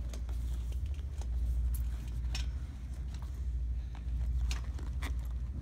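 Snap fasteners on the fabric of a fast-fold projection screen being popped onto the buttons of its aluminium frame one by one: several scattered sharp clicks over a steady low rumble.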